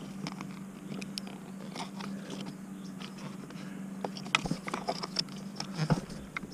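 Screwdriver and fingers working a plastic cruise control switch loose from a Ford Explorer steering wheel: small clicks, scrapes and plastic crunches, thicker in the second half, with two sharper clicks. A faint steady hum runs underneath and stops shortly before the end.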